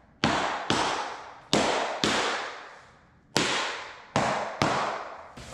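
Laminate flooring planks being knocked tight with a tapping block: about eight sharp knocks at uneven intervals, each ringing out with a long echoing tail.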